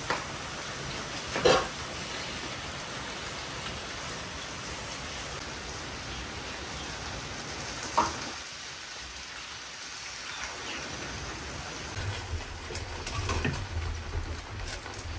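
Steady rain falling, an even hiss throughout. A few brief sharp sounds stand out about a second and a half in, at about eight seconds and again near the end, and a low rumble comes in from about twelve seconds on.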